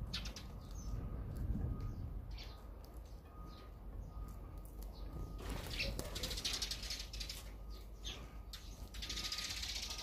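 Eurasian tree sparrows giving a few short chirps, then a whir of fluttering wingbeats as they take off about five and a half seconds in, and another flutter of wings near the end.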